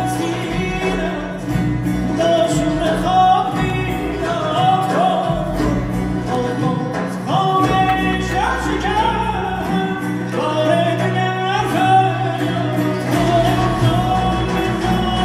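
Live music from a Persian ensemble of bowed strings, plucked lutes, piano and percussion, with an ornamented melody line that slides between notes over a steady bass.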